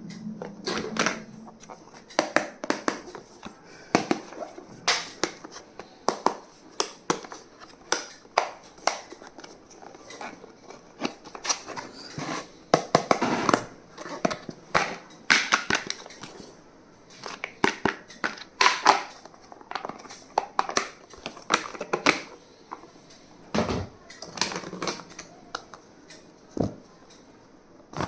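Stationery and its packaging being handled: an irregular run of sharp clicks, taps and crinkles, as items are picked up, opened and set down.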